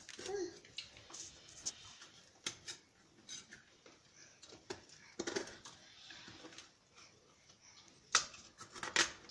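Kitchen knife prying and scraping coconut meat out of a half coconut shell: irregular scrapes and clicks as the blade works against the hard shell and chunks of flesh break away.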